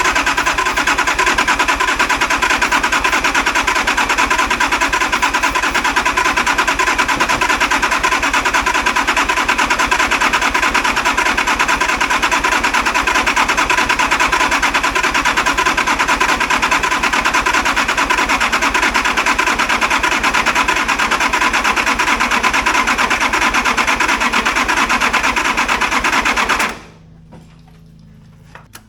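Nissan RD28 diesel engine cranked over on its starter motor for about 27 seconds in a steady, fast pulsing run without firing, then cut off suddenly near the end. It is a diesel that will not start, with the fuel system not yet fully bled or hooked up.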